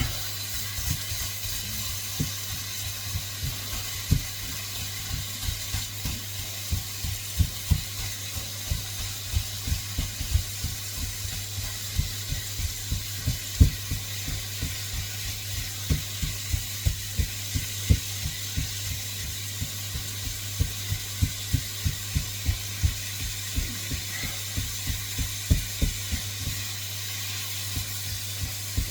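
Minced meat frying in a wok with a steady sizzling hiss. Soft, low knocks come irregularly, a couple a second, through most of it, and a low hum runs underneath.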